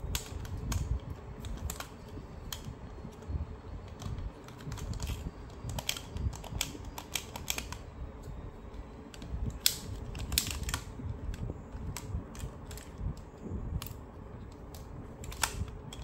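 Plastic DX Command Twin Buckle toy being handled: irregular clicks and clacks as its hinged parts are swung and pressed into place, over a low handling rumble. The clicks come thickest in the middle and thin out near the end.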